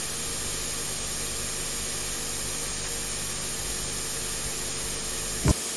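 Three-rail O-gauge model train running around the layout: a steady, even whirring hiss, with a single brief knock near the end.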